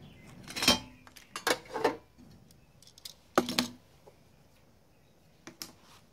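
Metal clinks and clanks as a steel outlet cover plate and a receptacle are handled and set down on a steel workbench. There is a sharp clank under a second in, two more around the two-second mark, a double knock about halfway, and two light taps near the end.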